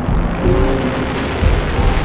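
Wind buffeting the microphone of a camera hung from a kite line: a loud, steady rushing with uneven low rumbling swells and a few faint brief tones.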